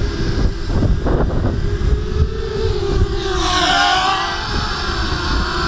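Gravity X210 racing quadcopter in flight, its motors whining with a pitch that wavers as the throttle changes. About three seconds in, a louder, higher whine rises and bends over it. A low rumble of wind on the microphone runs underneath.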